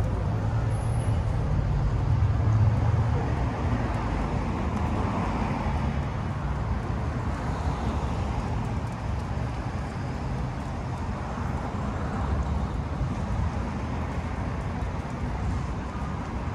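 City street traffic: a steady rumble of passing cars, with one vehicle a little louder about two seconds in.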